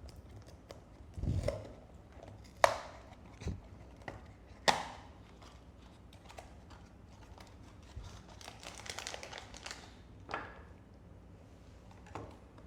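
A cardboard toy blind box being handled and opened by hand: a few sharp snaps and knocks, the two loudest a couple of seconds apart, and a soft crinkling rustle of packaging near the end.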